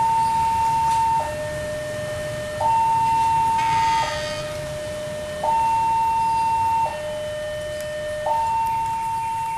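Electronic two-tone warning alarm alternating between a high and a low tone, each held about a second and a half, as sounded at a railway crossing or track as a train approaches. A brief higher-pitched sound cuts in about four seconds in.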